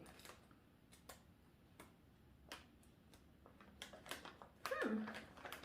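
Faint handling noise from the new shoes and their packaging: scattered light clicks and taps, several seconds apart. About three-quarters of the way through comes a short pitched sound that falls in pitch.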